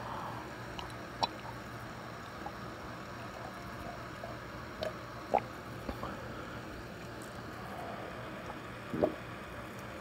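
A person drinking half-and-half from a glass: a few short swallows or sips and small clicks from handling the glass, over a steady low room hum.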